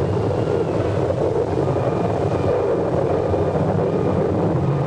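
Tornado roar: a steady, dense rushing wind noise that keeps on at one level, with faint whistling tones above it.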